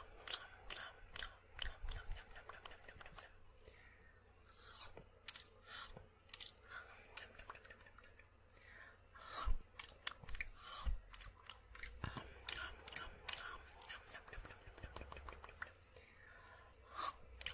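Dry mouth sounds close to the microphone: an irregular stream of sharp tongue clicks and lip smacks, a few every second, with soft breathy sounds between them.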